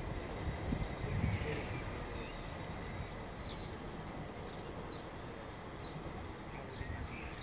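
Steady low rumble and hiss of outdoor noise, with a few short, high bird chirps over it.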